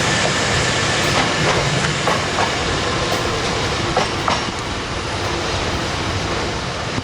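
A train running past close by: a steady rumble of wheels on rail, with clicks over the rail joints in the first few seconds, a little quieter in the last couple of seconds.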